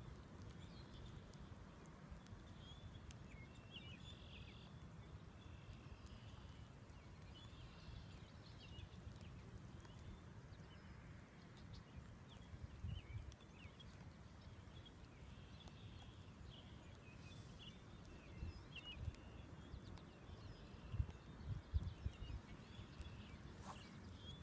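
Faint outdoor ambience: distant birds chirping now and then over a low rumble of wind on the microphone. There are a few soft bumps, likely handling of the phone, near the middle and again toward the end.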